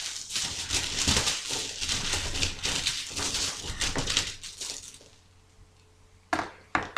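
A handful of seven plastic game dice rattling and clacking together for about five seconds. After a short pause come two sharp clacks, about half a second apart, as dice are thrown down.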